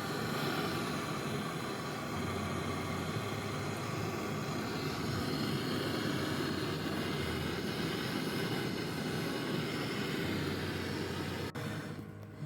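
Refrigeration vacuum pump running steadily, a motor hum under a broad mechanical drone, as it evacuates the fridge's sealed system before gas charging; the sound cuts off sharply near the end.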